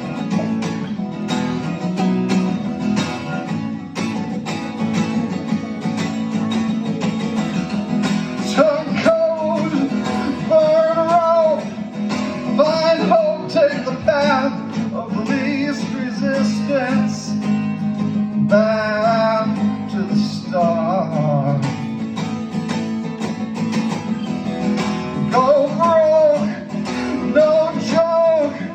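Acoustic guitar strummed and picked as a song intro, with a wordless melody line, likely sung, joining about eight or nine seconds in and coming in short wavering phrases.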